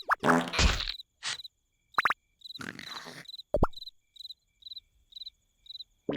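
Cricket chirps repeating about twice a second as a cartoon night-time sound effect. A short voiced noise from a cartoon character comes in the first second, and two brief whistle-like glides sound a few seconds in.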